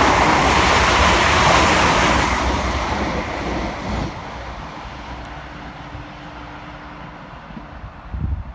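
Two coupled Class 350 Desiro electric multiple units passing fast through the station: a loud rush of wheels on rail and air that fades away steadily over the first four seconds as the train recedes.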